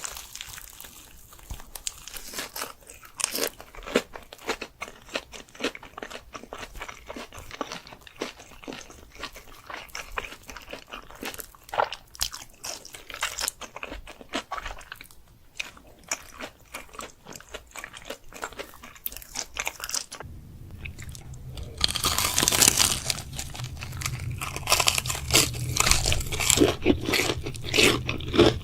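A person eating close to the microphone, with crisp crunching bites and wet chewing. About two-thirds of the way in, a low hum starts and the crunching becomes louder and denser.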